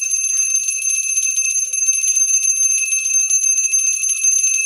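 Small hand-held puja bell (ghanti) rung rapidly and without pause, a bright, steady, high ringing, as part of a puja offered to the tulsi plant.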